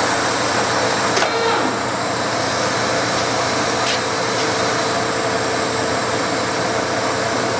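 Clausing 1250 Magnum engine lathe running with the spindle in a low gear at 12.5 RPM: a steady hum from the main motor and geared headstock, with two light clicks, about a second in and about four seconds in.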